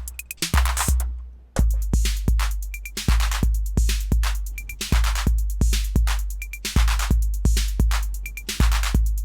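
TR-808-clone drum machine playing a looping beat: long, deep 808 bass drum under hi-hat strikes. The pattern cuts out about a second in and starts again.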